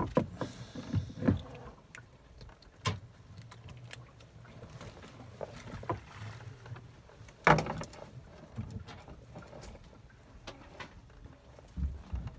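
Scattered knocks, clicks and rustling as a fisherman handles a freshly caught fish and fishing tackle aboard a wooden boat, over a low steady rumble. One louder knock comes about seven and a half seconds in.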